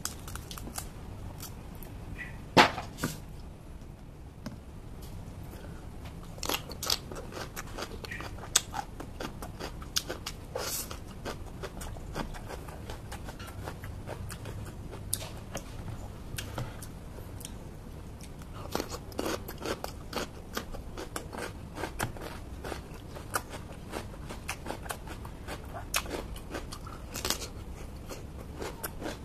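Close-up crunching and chewing of crisp raw vegetables such as cucumber and bitter melon: many sharp crunches with bites in between. A single crack about two and a half seconds in is the loudest.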